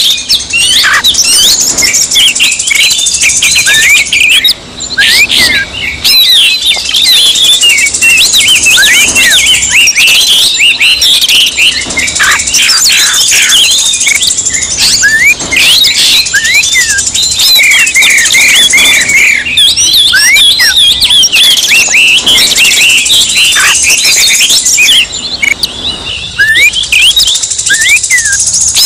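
Oriental magpie-robin song: a dense, unbroken stream of quick whistles, chirps and trills. It is the agitated, fired-up song played as a lure to provoke other magpie-robins into singing.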